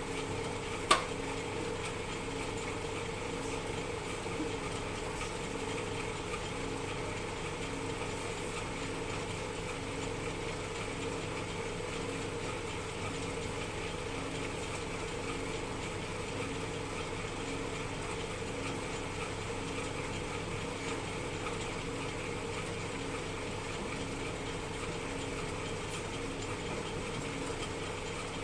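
Metal lathe running steadily: an even machine hum with a faint regular beat. A single sharp click about a second in.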